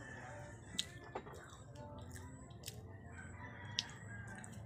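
A rooster crowing faintly in the distance, over a low steady hum. Several sharp close clicks and smacks of eating come through, the loudest a little before the end.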